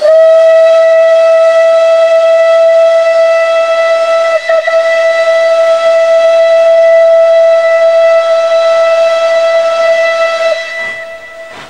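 Steam locomotive whistle sounding one long, steady single-note blast of about ten seconds, with a brief waver about four seconds in before it dies away near the end. It is the whistle given before the engine pulls out, with steam hissing from it.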